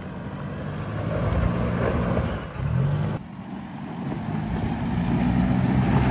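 Four-wheel-drive vehicle's engine working under load as it reverses up a difficult off-road track. The engine rises steadily, gives a short rev about two and a half seconds in, drops suddenly at about three seconds, then builds again.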